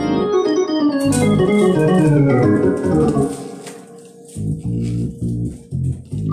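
Two-manual Hammond organ being played: a fast descending run of notes over the first three seconds, then, after a brief dip, a rhythmic pattern of low bass notes and chords pulsing about twice a second.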